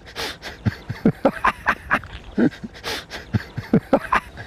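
A man laughing hard: short, pitched bursts of laughter broken up by wheezing, panting breaths.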